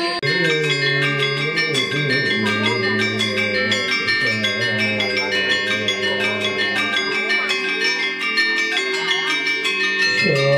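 Balinese gender wayang, bronze metallophones struck with disc-headed wooden mallets, playing a fast run of interlocking ringing notes. A low voice chants over the music.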